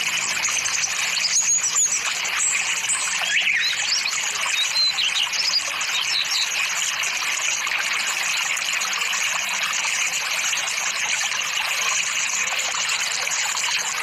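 Steady hiss of flowing water, with several birds chirping over it in the first half.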